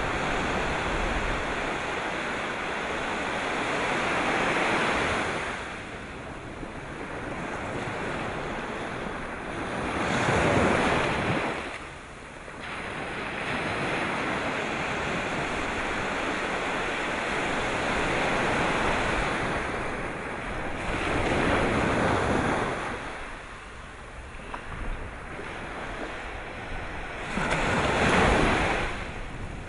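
Sea waves breaking and washing in, a continuous surf noise that swells to a louder break about every five to eight seconds.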